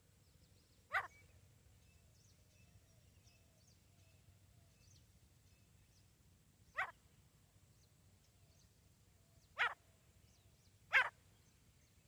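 Female grey francolin giving four short, sharp calls at uneven gaps, the last the loudest, over faint chirping of small birds.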